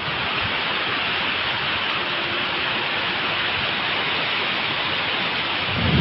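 Heavy tropical-storm rain falling steadily, an even, dense hiss.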